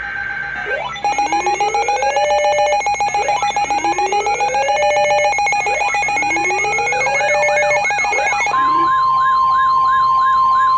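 An electronic emergency siren sounds three long rising wails over a rapidly pulsing tone. About eight seconds in it switches to a fast warbling yelp, joined by a steady high alert tone.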